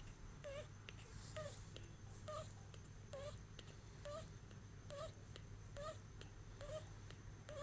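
Sleeping baby chick making short, soft wavering calls at an even pace of about one a second, the sound called snoring.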